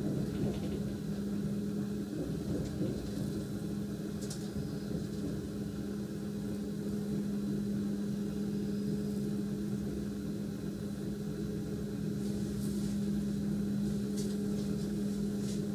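Cabin sound of an NSB Class 74 electric multiple unit running along the line: a steady rumble and hum with a constant low tone, broken by a few brief high-pitched clicks.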